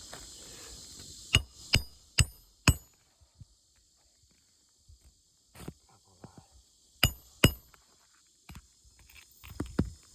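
Hammer driving roofing nails into an asphalt shingle: four quick blows a second or so in, then several more from about halfway through.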